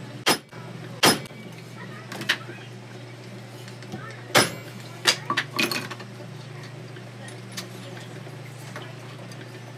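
Small hammer striking a fork and spoon handle held in a bench vise, flattening them together to close the gap before soldering. Two sharp blows come in the first second or so, a lighter one follows, and then a few more come around four to six seconds in, over a steady low hum.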